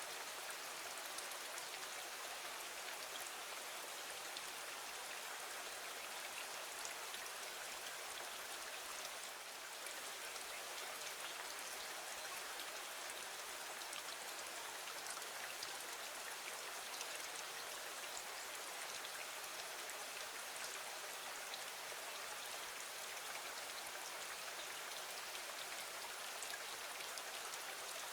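Steady rain falling against a window: an even hiss with scattered small ticks of individual drops.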